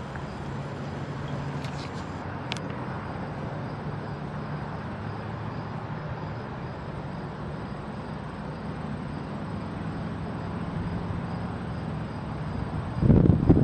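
Steady distant road traffic hum from the city below. About 13 seconds in, a gust of wind buffets the microphone with a loud low rumble.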